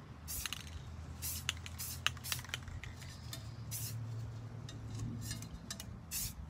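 Rust-Oleum aerosol spray-paint can spraying in a quick series of about a dozen short hissing spurts, each a fraction of a second long, laying paint onto a tumbler.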